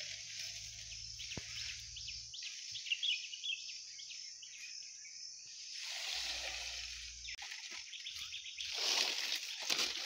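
Dry coconut palm fronds rustling and crackling as they are handled and leaned against the tent frame, loudest near the end. Under it, a steady high-pitched outdoor background with a few bird chirps about three seconds in.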